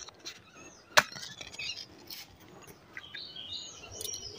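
A single sharp click about a second in while a clay wood-fired stove is being lit, then small birds chirping near the end.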